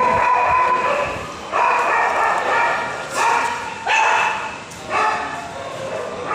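Young kittens mewing, a string of about five long, high cries one after another.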